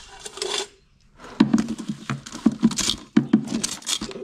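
Metal kitchen tongs clicking and scraping inside a plastic cooler as live rock crabs are picked out. A quieter start is followed, from about a second and a half in, by a dense run of sharp, irregular clatters.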